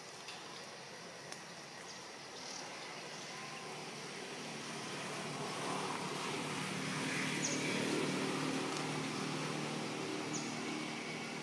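A passing motor vehicle's engine hum, growing louder over several seconds and fading toward the end, with a few faint short high chirps in the background.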